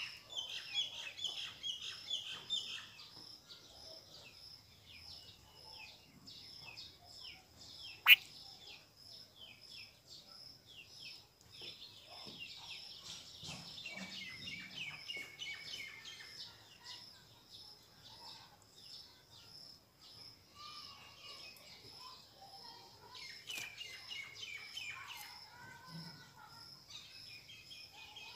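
Birds chirping and twittering in short high notes, busiest in the first few seconds and again in the middle. A steady, evenly repeating high note runs behind them, and one sharp click stands out about eight seconds in.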